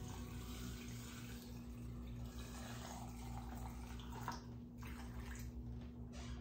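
Hot water being poured into a large glass jar packed with apples. The pouring is strongest in the first couple of seconds, then thins out into a few short splashes or drips.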